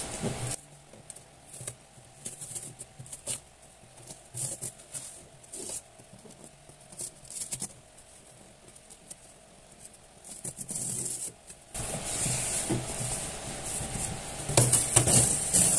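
A small cardboard shipping box being opened and handled: scattered light taps and scrapes, then louder rustling and scraping over the last few seconds.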